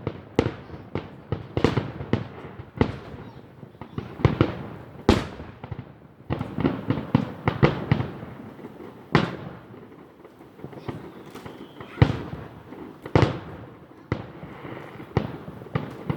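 Fireworks going off: an irregular run of sharp bangs, some in quick clusters and some single louder reports, each trailing off in an echo.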